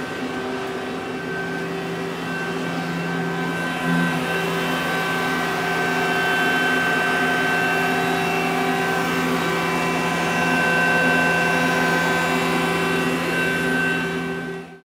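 Mazak SQR-200 CNC lathe running under power: a steady machine hum made of several fixed tones, which cuts off abruptly near the end.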